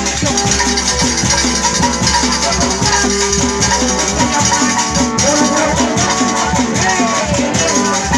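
Live Sundanese sisingaan accompaniment music, amplified and loud: a fast, steady drumbeat of about four strokes a second with rattling percussion and held melody tones over it.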